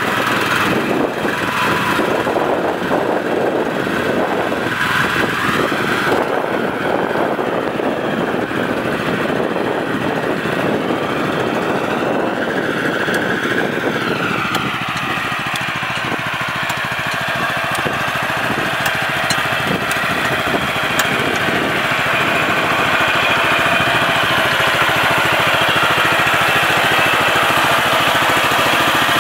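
Small gasoline engine on a shed mover running steadily under load. Its note shifts about halfway through.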